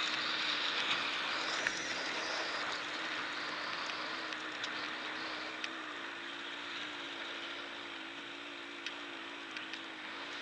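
Dirt bike engine running at a steady, low pitch with small rises and falls, under a heavy rush of wind on the camera, with a few sharp ticks.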